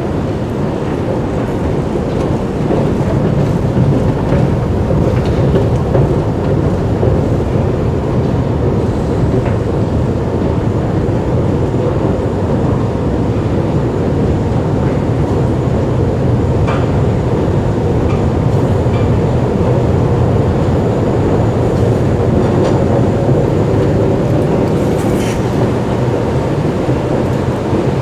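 Steady low rumbling drone of an underground metro station's machinery, unchanged throughout, with a faint steady tone above it and a few faint clicks.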